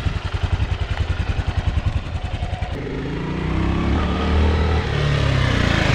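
Suzuki Savage 650's single-cylinder four-stroke engine thumping evenly at idle, then revving up about three seconds in and running at higher revs.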